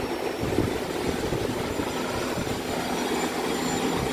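A steady mechanical rumble with a faint low hum, unchanging throughout.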